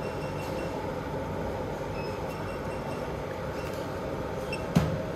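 A steady mechanical hum with a hiss, like a running motor or fan, and one sharp knock near the end.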